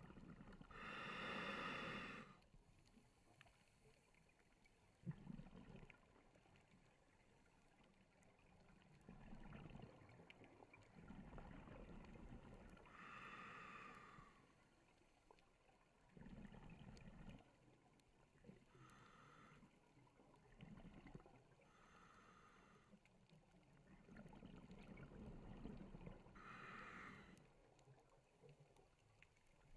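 Faint, muffled underwater sound of scuba divers breathing out through their regulators: bubble bursts lasting a second or two, coming every few seconds, heard through a GoPro's waterproof housing.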